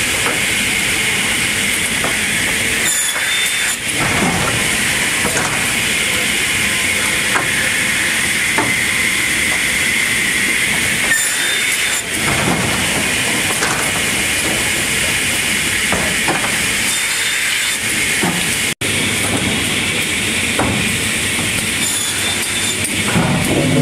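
Steady hissing machine noise from a Delrieu board-stacking line, with irregular knocks and clacks as sawn boards are pushed along and dropped onto the stack.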